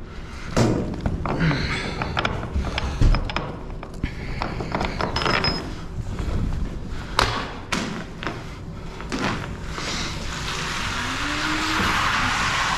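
Scattered knocks and clacks of cargo straps and a long hook pole being handled on a truck trailer's roof. Near the end a rushing noise swells up.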